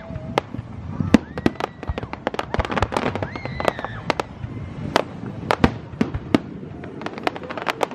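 Fireworks display: a dense string of sharp cracks and bangs, several a second, with a few brief rising whistling tones among them.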